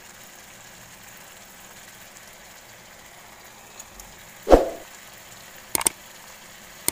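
Faint steady sizzle of shelled clams and spice paste frying in a wok. About four and a half seconds in comes one sudden loud thump. Near the end, short sharp clicks are the mouse-click sound effects of a subscribe-button animation.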